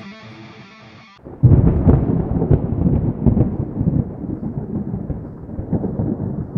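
Thunder sound effect: a sudden loud rumble that starts about a second in and rolls on with crackling peaks. It follows the last second of quiet guitar intro music.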